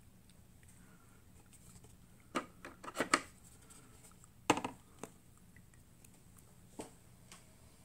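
Makeup items being handled on a table: a quick cluster of clicks and taps about two and a half seconds in, a sharper click a couple of seconds later, then a few softer taps, over a faint low hum.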